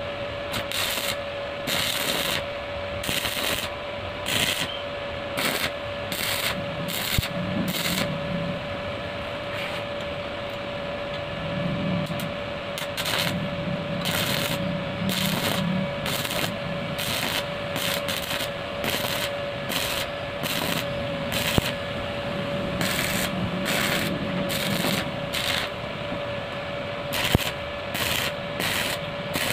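Stick (arc) welding on steel: the electrode arc crackles and sizzles in irregular bursts, over a steady hum that starts as the arc is struck and holds throughout.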